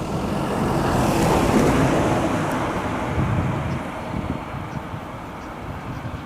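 A vehicle passing by: a rushing noise that swells to a peak about a second and a half in, then fades away.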